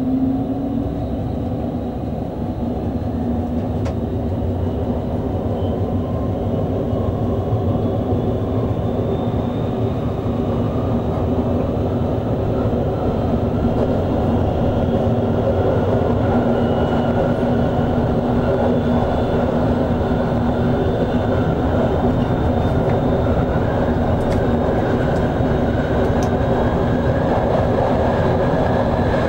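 Hamburg S-Bahn electric multiple unit running, heard from the driver's cab. The electric traction motors give a whine that rises steadily in pitch as the train accelerates, over a steady rumble of wheels on the track.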